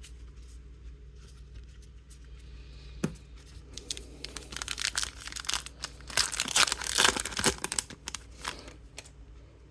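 A trading-card pack wrapper being torn open and crinkled, with one sharp click about three seconds in and the crackling heaviest in the second half.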